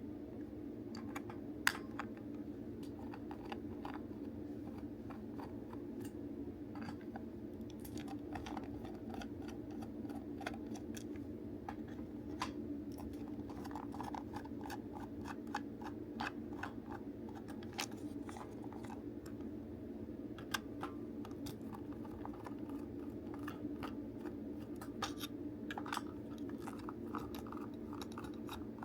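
Irregular small clicks, taps and scrapes of the plastic parts of a DX Buggle Driver II toy belt being handled and taken apart, over a steady low hum.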